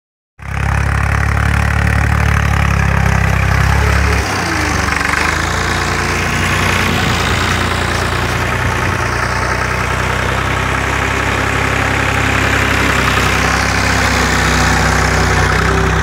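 Farm tractor's diesel engine running steadily close by as it pulls a mouldboard plough through the soil under load; the engine note drops a little about four seconds in.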